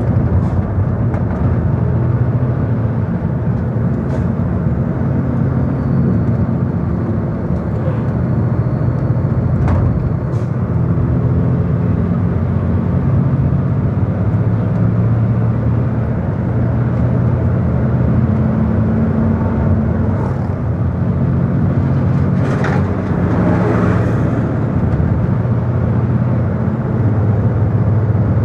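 A road vehicle driving on a highway, heard from inside: a steady low engine hum that drifts a little in pitch over continuous tyre and road noise, with a brief rush of noise about 23 seconds in.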